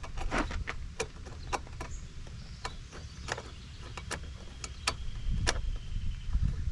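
A 4 mm Allen key working M6 bolts snug on a metal seat-mount plate: a string of light metal clicks at an uneven pace, roughly two a second, as the key is turned and re-seated in the bolt heads.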